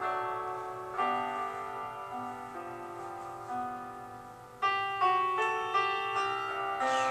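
Background piano music: slow, sustained notes and chords changing about once a second, with louder, more sharply struck notes from about halfway through.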